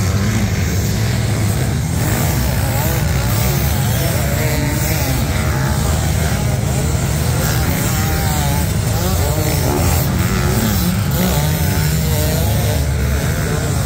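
A pack of motocross bikes racing past together on a sand track, engines revving up and down over the jumps in a continuous, overlapping rumble.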